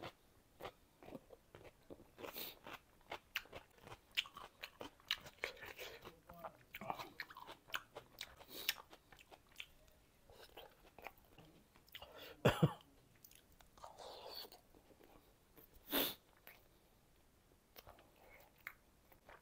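Close-miked chewing and biting of a man eating fish curry and rice by hand: soft, irregular wet mouth clicks and crunches, with a couple of louder mouth sounds past the middle.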